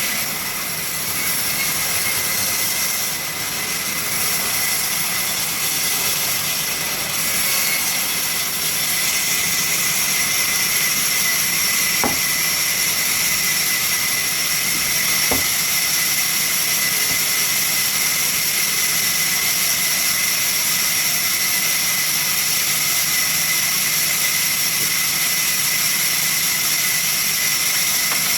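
Sawmill saw machine running steadily, with a high whine over a constant hiss; two short knocks come partway through.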